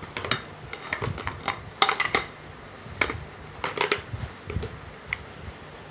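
Irregular clacks, taps and knocks of black platform wedge shoes being picked up and handled, with small handling rustles in between.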